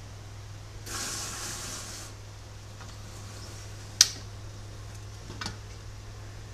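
Aluminium pressure cooker being opened after a sterilizing run: a brief hiss about a second in, then a sharp metallic click as the lid is twisted free, and a softer click over a second later.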